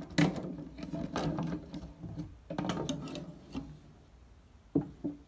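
Metal mesh screen lid of a glass terrarium rattling and scraping in its frame as it is slid and handled, with several sharp knocks, for about three and a half seconds. It then goes faint, with one more short knock near the end.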